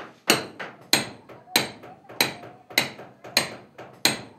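Hammer driving nails into a wall with steady, evenly spaced blows, about seven strikes at roughly one and a half a second, each sharp with a short ring. The nails are fastening exposed surface wiring along the wall.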